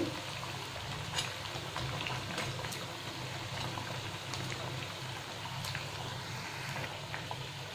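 Sabudana vadas deep-frying in hot oil: a steady sizzle with a few sharp pops and crackles.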